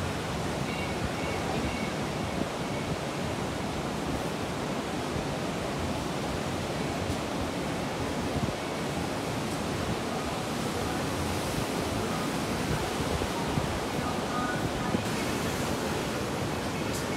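Ocean surf: waves breaking and washing in, a steady rushing noise.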